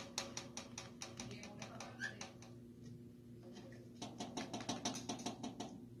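Cockatiel tapping its beak rapidly against wood, a courtship display to get its mate's attention. Two runs of quick sharp taps, about eight a second: one stops about two and a half seconds in, the other starts about four seconds in and stops near the end.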